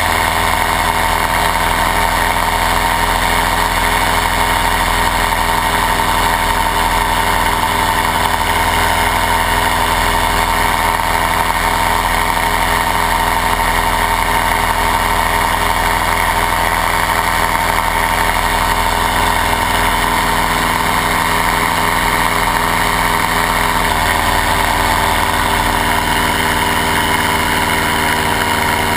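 Paramotor engine running steadily in flight, with a slight change in its note near the end.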